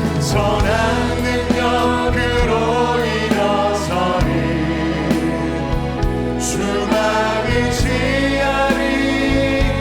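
Church praise band playing a worship song, with singing.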